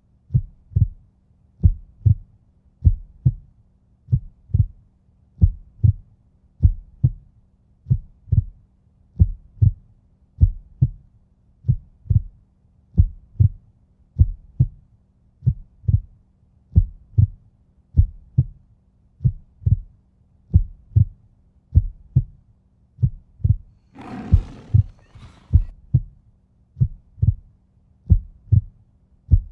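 Heartbeat sound effect: steady, evenly paced low thumps in pairs over a faint steady hum. About 24 s in, a short burst of hissing noise comes in twice over less than two seconds.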